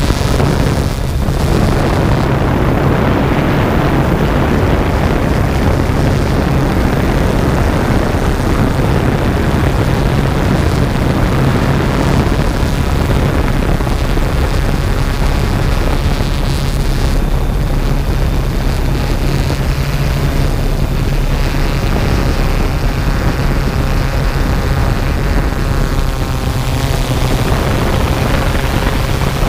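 Yuneec Typhoon G quadcopter's electric motors and propellers whirring steadily in flight, loud and close from the GoPro mounted on the drone itself, with a strong low hum under the rushing noise.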